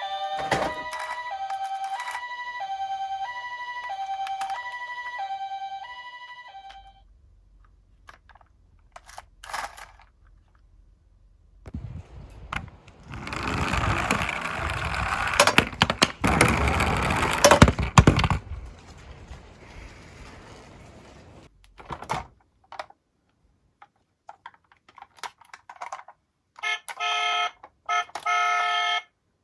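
Two-tone hi-lo emergency siren switching back and forth between two notes, stopping about seven seconds in. Scattered clicks follow, then several seconds of loud clattering noise, and near the end a short burst of chopped electronic tones.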